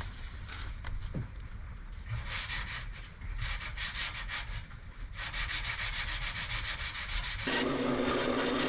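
Quick, repeated hand-sanding strokes, a rapid even scraping. Near the end a small electric power tool's motor starts and runs with a steady hum.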